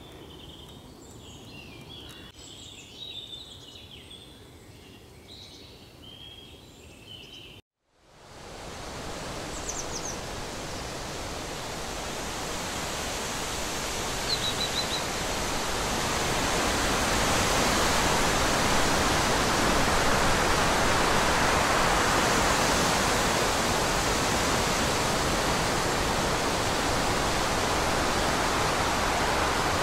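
Birds chirping over a quiet woodland background; after a sudden cut to silence, a steady rushing noise swells up over several seconds and holds, with a few faint bird chirps over it.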